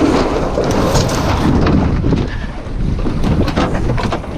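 Wind rumbling on the microphone and water rushing along the hull of a Lightning sailboat as the crew puts it through a tack, with scattered short knocks and snaps from the boat and gear.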